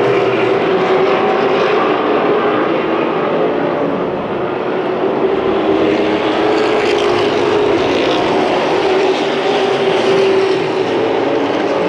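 A pack of short-track racing pickup trucks running laps at speed, their engines blending into one loud, steady drone.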